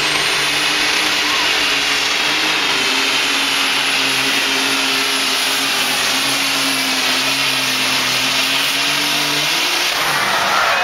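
Super stock alcohol pulling tractor's turbocharged engine at full throttle under load, dragging a weight-transfer sled: a steady engine note with a high turbo whine, sagging slowly as the sled bears down. The engine drops off abruptly about nine and a half seconds in as the pull ends.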